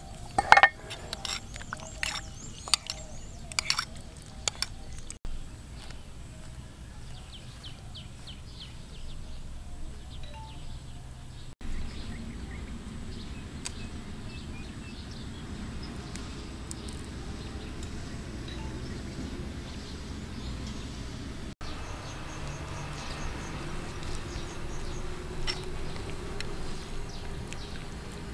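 A metal spoon clinking and scraping against a bowl of dipping sauce as it is stirred, a few sharp clicks in the first four seconds. After that, a steady outdoor background with faint bird chirps.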